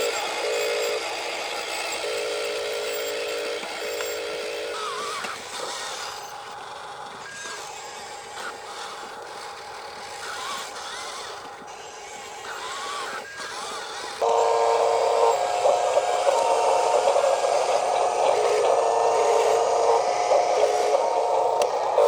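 Small electric motors and gearboxes of radio-controlled construction models whining. There are short stop-start bursts at first, then a quieter stretch, and a louder, steady whine from about two-thirds of the way in.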